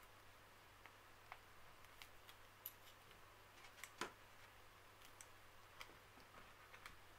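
Near silence with faint scattered clicks and taps of galvanised steel J-clips and J-clip pliers being handled on a tabletop, the loudest tap about four seconds in.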